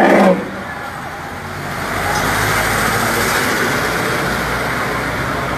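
Street traffic noise: a steady mix of passing motor vehicles and engines, after a brief loud sound right at the start.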